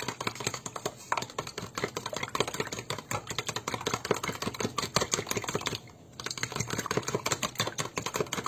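Metal fork beating egg and milk in a plastic cup: rapid clicking of the fork against the cup, with a brief pause about six seconds in.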